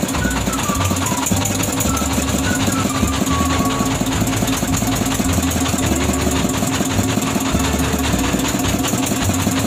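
A fishing boat's inboard engine running steadily with a fast, even knock.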